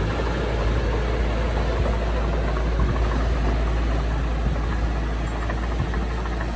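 Diesel engine of heavy earthmoving machinery running steadily, a continuous low rumble.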